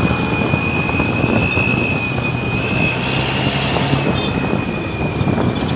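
Motorcycle engine running steadily while riding, mixed with wind noise on the microphone and a steady high-pitched whine.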